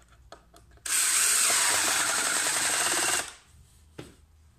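Cordless drill running for about two seconds as it drives an anti-split wood screw down into a chipboard block, then stopping; a single click follows about a second later.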